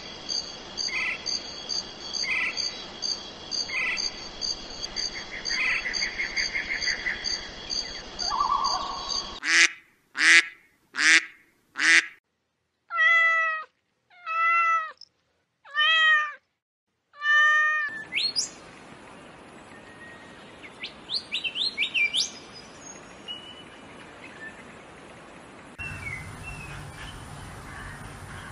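A run of animal sound clips. First comes high chirping over a steady high trill, then four short, sharp calls. About halfway through a domestic cat meows five times, evenly spaced. Quick high bird-like chirps follow.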